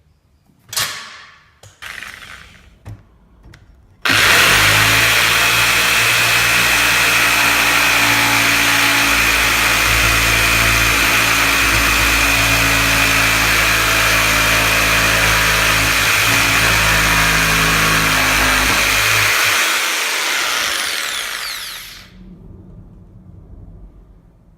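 GMC 500W electric jigsaw: a few handling knocks, then the motor switches on abruptly and runs at a steady speed for about sixteen seconds before it is switched off and winds down.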